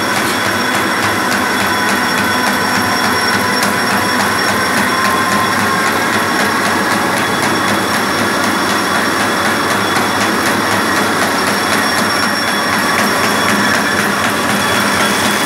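Collating machine for carbonless computer forms running at speed: a steady, dense mechanical clatter of rollers and paper feed, with a few steady high whining tones held over it.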